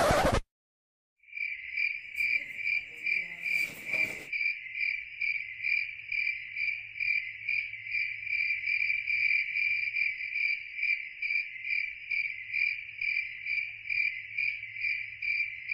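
Cricket chirping: a steady run of evenly spaced, high chirps that starts suddenly a little over a second in and keeps going. A short burst of noise cuts across it about four seconds in.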